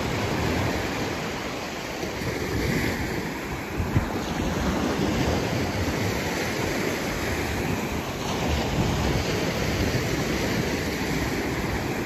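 Sea waves breaking and washing up the beach, the wash swelling twice, with wind buffeting the microphone. A brief knock about four seconds in.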